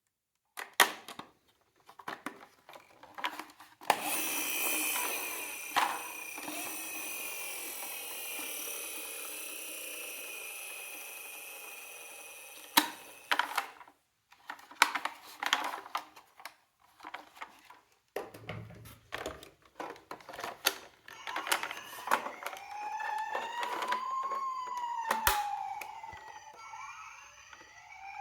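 Toy miniature ambulances and police cars clicking and clattering as they are handled, with a whine from about four seconds in that slowly falls in pitch and fades over several seconds. Near the end a toy siren wails, rising and falling slowly.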